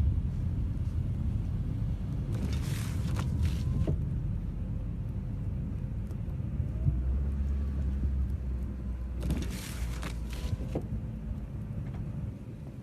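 A low steady rumble with two short spells of hissing, about seven seconds apart.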